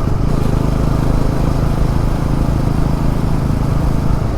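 Motorcycle engine running steadily while being ridden, with wind noise on the microphone.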